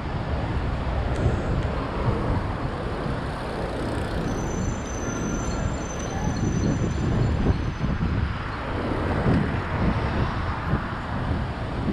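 Steady rumble of road traffic on a busy city street, vehicles passing continuously, with a faint thin high tone for a few seconds in the middle.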